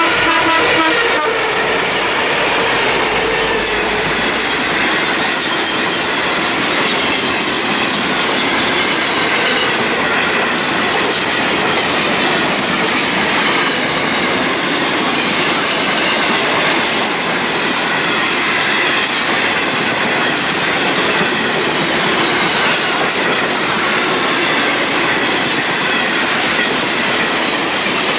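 Freight train passing close by. The BL-class diesel-electric locomotive goes past in the first few seconds, its low engine note dropping away after about five seconds. Then a long rake of hopper wagons rolls past with a steady noise of wheels on rail.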